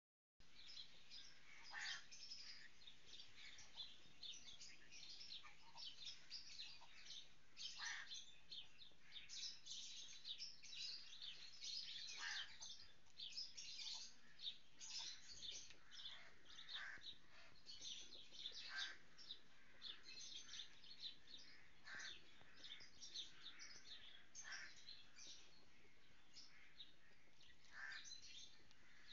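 Small birds chirping and twittering faintly and continuously, with a louder call that slides down in pitch every few seconds.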